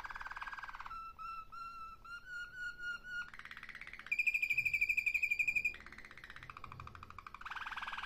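Malinois (Waterslager) song canary singing a run of rapid rolling trills, with a string of short clear notes about a second in and a louder, higher rolling trill from about four to nearly six seconds in, then lower rolls again.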